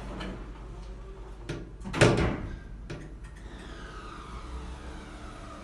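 Otis Gen2 lift's glass sliding doors closing, meeting with a loud thud about two seconds in after a lighter click, with another click a second later. A faint whine then sets in, slowly falling in pitch.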